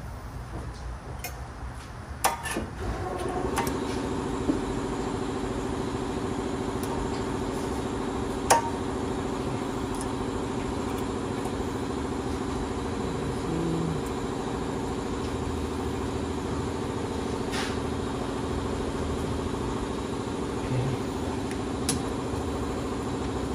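A motor vehicle engine comes on about three seconds in and idles steadily, with a few sharp clicks or knocks over it.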